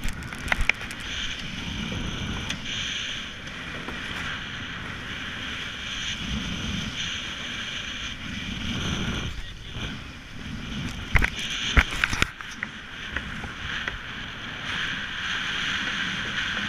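Wind buffeting the microphone and water rushing past the hulls of a sailing catamaran under way. A few sharp knocks come about half a second in and again in a cluster around eleven to twelve seconds in.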